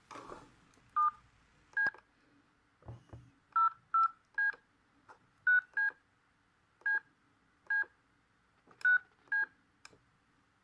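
Panasonic G60 mobile phone's keypad tones: about a dozen short two-tone beeps at irregular intervals as its buttons are pressed, with a few soft clicks and a brief low thump about three seconds in.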